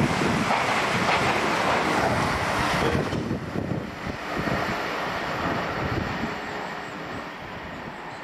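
Passenger train passing at speed alongside the platform: a loud, steady rush of wheels on rail and air. After about three seconds the noise drops and fades steadily.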